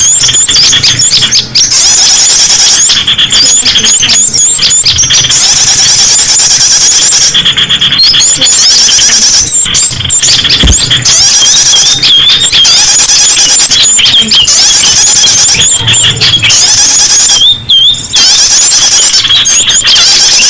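A loud, dense chorus of many small songbirds chirping and twittering at once, their high calls overlapping without a break. It is a bird-luring (pikat) recording meant to draw in small wild birds.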